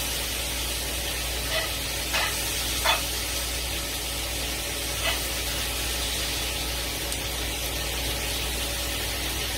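Pork chops and apples frying in brown butter in a skillet: a steady hissing sizzle, with a few light clicks of a utensil against the pan in the first half.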